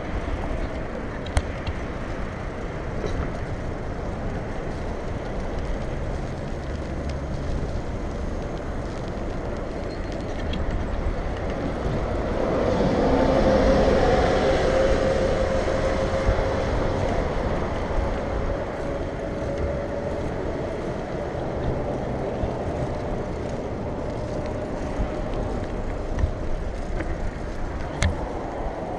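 Wind rushing over an action camera's microphone while cycling along a road, with steady road and traffic noise. About halfway through a louder swell with a steady hum rises and fades, and there are single sharp clicks near the start and near the end.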